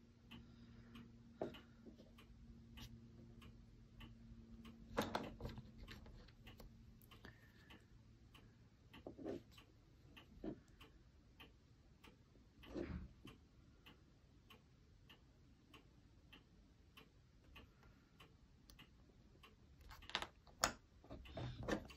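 Quiet workbench sounds: a faint, steady ticking runs throughout, with a few soft clicks and knocks as a photo-etched ladder is handled in a metal bending jig and worked with a blade. A faint low hum fades out after about seven seconds.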